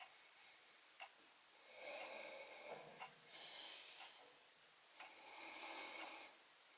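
Faint short clicks of metal tweezer tips, four in all, a second or two apart, as beard hairs are plucked and laid on tape. Between them come soft rushing stretches of about a second each, like breathing.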